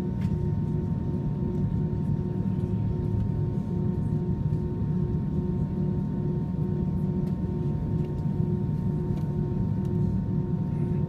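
Steady low machinery drone of an airliner being deiced, with a constant hum over it and a faint tone pulsing about four times a second.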